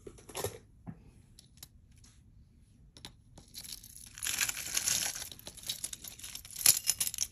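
A pile of metal costume jewelry clinking and rattling as a hand rummages through it: a few light clicks at first, then from about halfway a busier jangle of pieces sliding and knocking against each other, with one sharper clink near the end.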